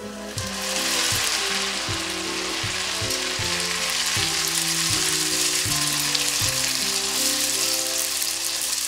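Strips of dumpling wrapper deep-frying in about an inch of hot vegetable oil in a small saucepan: a loud, steady sizzle that swells up just after they go in and keeps going.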